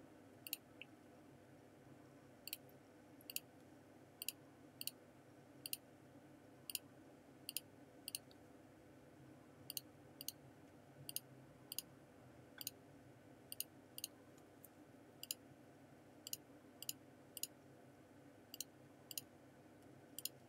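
Computer mouse button clicking repeatedly, about thirty short, sharp clicks at an uneven pace, some in quick pairs, over a faint steady hum.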